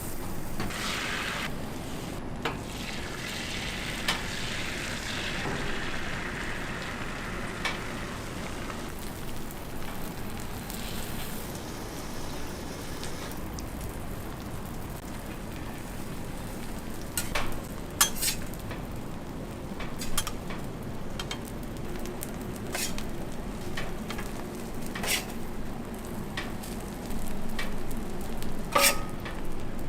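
Toast frying, sizzling steadily, with scattered sharp clicks and taps, most of them in the second half.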